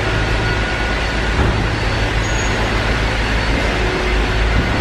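Steady low rumble with a hiss: the background drone of an underground car park.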